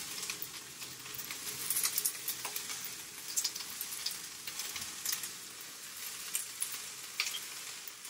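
Whole red Palamós prawns sizzling in an olive-oiled frying pan: a steady hiss with scattered crackles and pops.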